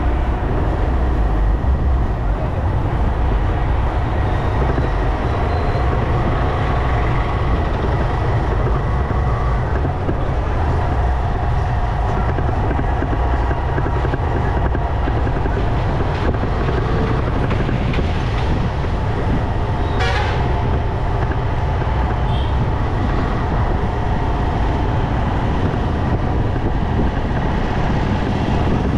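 Motorcycle riding through city traffic: a steady engine and wind rumble with surrounding road noise and a brief sharp sound about twenty seconds in.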